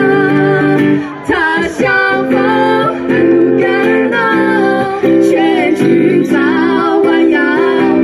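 Live female singing with acoustic guitar accompaniment: a woman's voice carries a wavering melody over steadily played guitar chords.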